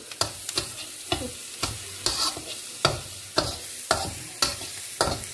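A metal spatula scrapes and taps against a metal wok about twice a second, stir-frying chopped onion, garlic, chilli and mushrooms, which sizzle underneath.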